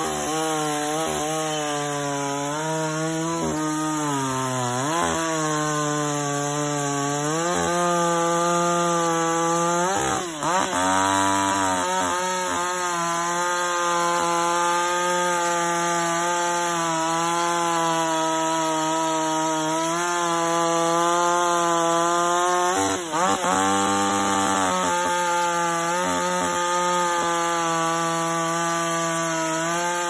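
A 58cc two-stroke petrol chainsaw running at full throttle, cutting through a log. The engine note wavers as the chain bites into the wood, and twice dips sharply and picks up again, about ten seconds in and again at about twenty-three seconds.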